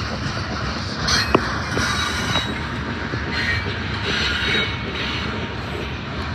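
Train cars rolling past with a steady rumble of wheels on rail. Patches of higher wheel squeal rise and fade, and there is a sharp click a little over a second in.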